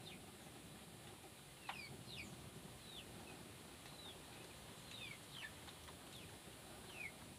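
Birds chirping faintly: about a dozen short, high chirps, each sliding downward in pitch, scattered irregularly through near-quiet.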